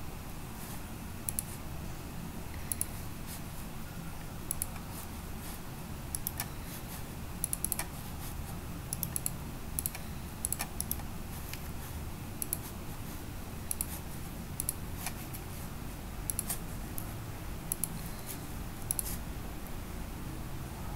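Computer mouse clicking while lines are drawn in pattern-drafting software: short, sharp clicks at irregular intervals, often in quick pairs, over a steady low hum.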